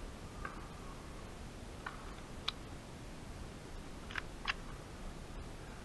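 Four sharp cracks of airsoft gunfire: two about two seconds in, then a quick pair about four seconds in.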